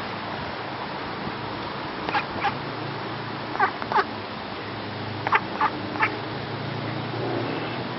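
Mallards quacking: seven short quacks in groups of two, two and three, over steady background noise.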